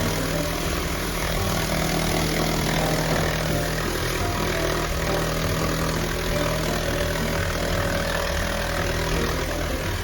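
A machine motor running steadily, with a low hum and an even hiss over it.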